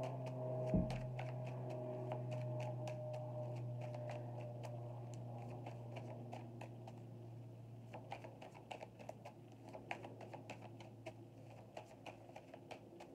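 Tarot cards being shuffled by hand: a rapid, irregular patter of card clicks, over a low steady tone that fades away over the first ten seconds or so. A single soft thump about a second in.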